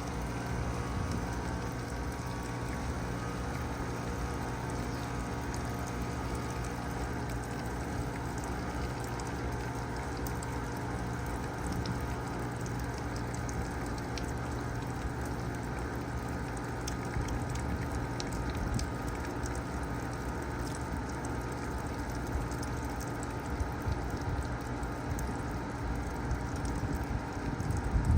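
A 3-ton Bard wall-hung heat pump in its defrost cycle: the compressor hums steadily while melt water patters and drips off the coil, with a louder burst right at the end.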